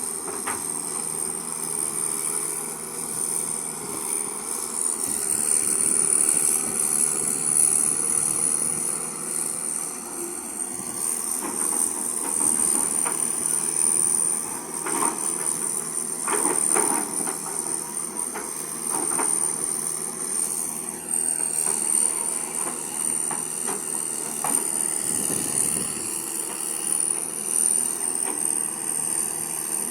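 Excavator working: its engine and hydraulics run steadily under a high, slightly wavering whine, with scattered knocks and clanks through the middle stretch.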